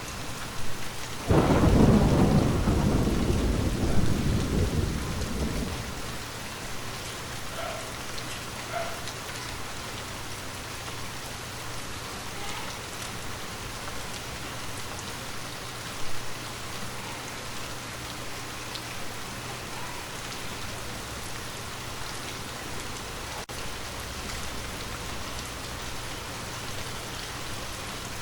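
Steady rain falling, with a thunderclap about a second in that rumbles low and dies away over the next five seconds.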